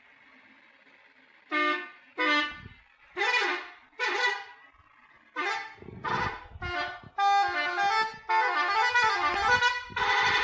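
A Jaya Gemilang bus's telolet horn, a multi-note musical air horn, playing a melody. It starts about a second and a half in with about eight short toots at different pitches, then moves into longer overlapping notes that step up and down in pitch.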